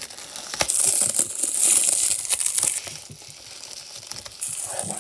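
Plastic shrink-wrap crinkling as it is cut and pulled off a Blu-ray case, with a few sharp clicks; the crackling is loudest in the first half, then dies down.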